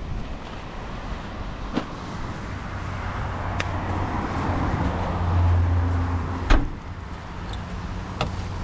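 A car's trunk lid slammed shut: one sharp bang about six and a half seconds in, over wind noise and a low steady hum. A few light knocks and clicks come before and after it.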